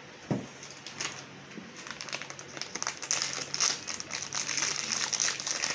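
Thin plastic packaging crinkling and rustling as it is handled and pulled open, growing denser from about two seconds in. A light knock just after the start.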